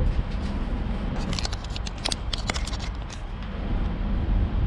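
Vertical multistage fire booster pump set running with a steady low electric-motor hum and rumble. A quick run of sharp metallic clicks and scrapes comes about a second in and stops before the three-second mark.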